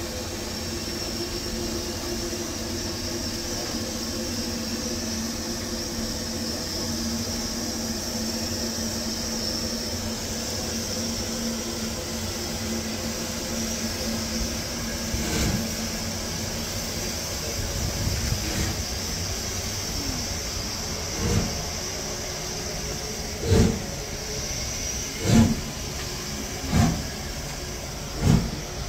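LMS Black Five steam locomotive No. 5428 'Eric Treacy', a two-cylinder 4-6-0, stands with a steady hiss of steam and then starts away with its train. Its exhaust beats begin about halfway through, come slowly at first, then settle to about one every second and a half and grow louder towards the end.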